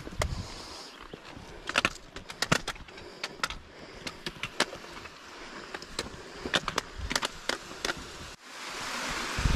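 A hiker's steps over granite rock, with sharp irregular clicks and scrapes of boots on the stone. About a second before the end it cuts to a steady rush of running water from a mountain stream.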